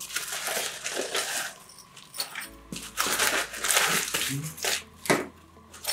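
Crinkling and rustling of a padded bubble-mailer envelope and the plastic bags inside it as they are handled and opened, in uneven bursts, with a single sharp click about five seconds in.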